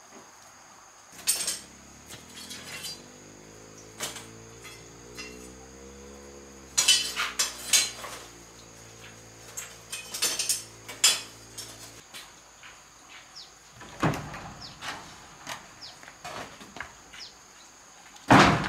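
Irregular knocks and metallic clinks, as of tools and materials being handled, in clusters with pauses between; the loudest strike comes near the end. A faint low hum runs underneath and stops suddenly about twelve seconds in.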